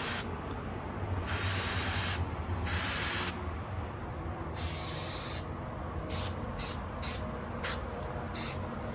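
Headliner spray adhesive being sprayed in separate hissing bursts: three of about a second each, then five short quick puffs.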